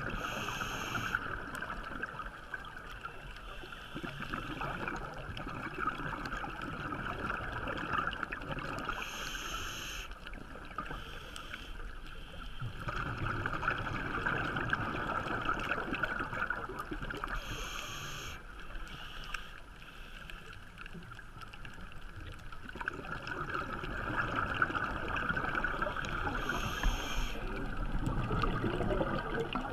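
Scuba diver breathing through a regulator underwater: a short hiss about every eight or nine seconds, with rumbling, bubbling exhalations in between.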